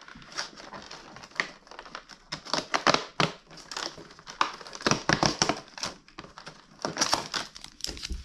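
Plastic packaging crinkling and crackling in irregular handfuls as a small packet is handled and opened by hand.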